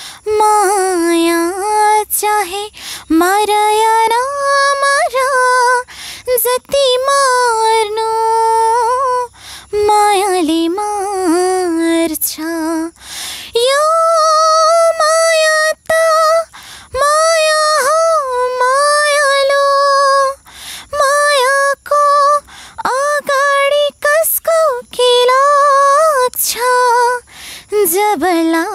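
A teenage girl singing a sentimental Nepali love song solo and unaccompanied, in long held notes with wavering ornaments and short breaks for breath.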